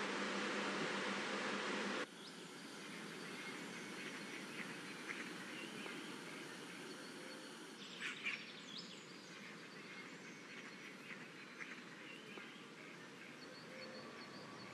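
A steady fan-like hum with a hiss cuts off suddenly about two seconds in. Then comes a quieter, steady rush of river water over a small weir, with birds calling now and then, a few calls close together near the middle.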